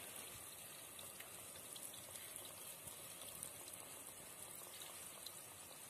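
Sweet tikkis deep-frying in hot oil: a faint, steady sizzle of small bubbles crackling around the dough.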